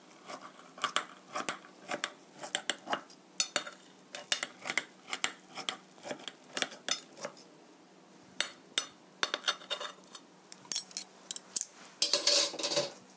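Kitchen scissors snipping through a pan-fried dumpling pancake on a ceramic plate, with many sharp clicks of the blades and taps of metal against the plate, then a louder scraping rustle near the end.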